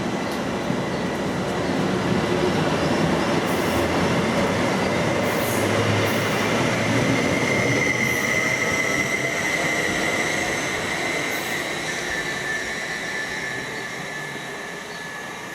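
Train running past, a wide rumble with a high wheel squeal that is strongest about halfway through, then the noise slowly fades.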